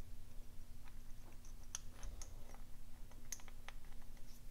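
Small metal brake-valve parts clicking and ticking as they are handled and fitted into a brake distribution valve body by hand: a scatter of light, sharp clicks at irregular intervals. A faint steady hum runs underneath.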